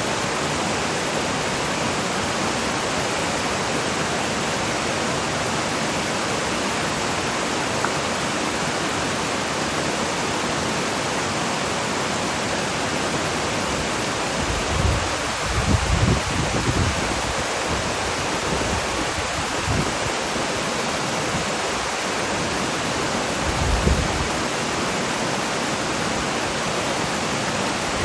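Mountain valley stream rushing steadily over rocks. A few brief low rumbles come in about halfway through and again near the end.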